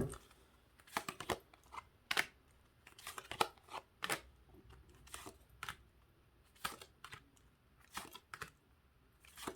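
Tarot cards being handled, shuffled and laid out: irregular soft flicks and slaps of card stock, beginning with one sharp snap.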